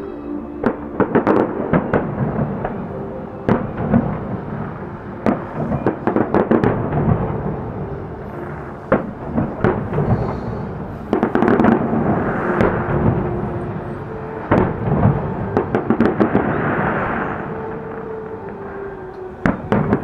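Fireworks display: aerial shells bursting in irregular runs of booms and crackles, some in quick clusters, with music playing underneath.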